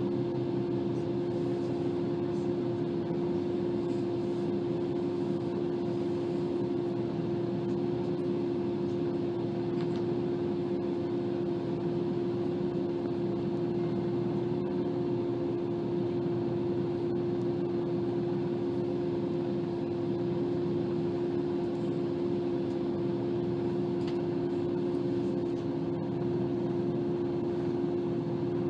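Steady drone of a diesel train's engine running at constant speed, a low even hum that holds one pitch without rising or falling.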